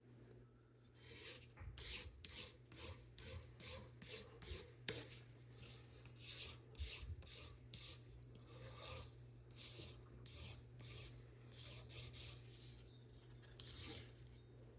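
Rhythmic rasping strokes of a hand file, about two a second, over a steady low hum.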